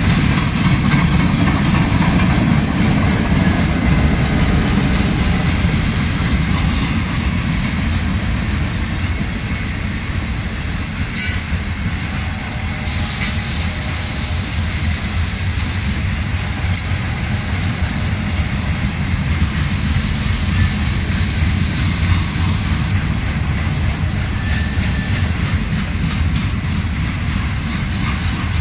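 Freight cars of a long train rolling slowly through a grade crossing: a steady low rumble with the clack of wheels over the rail joints. A couple of brief high wheel squeals stand out near the middle.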